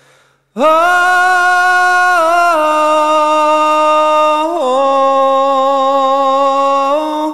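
Background music of long held notes, coming in after a brief silence and stepping down in pitch every two to three seconds.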